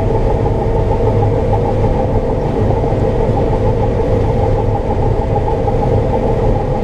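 Combine harvester running steadily while harvesting soybeans, heard from inside the cab: an even machine drone with a low hum and a few steady higher tones. No beans are heard hitting the cab glass, a sign that the dry pods are not shattering.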